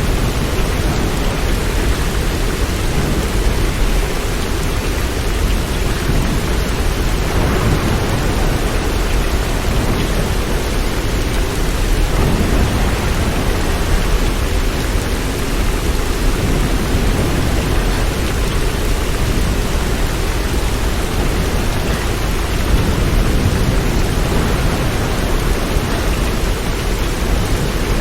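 Steady rain falling: an even, unbroken hiss with a deep low rumble underneath.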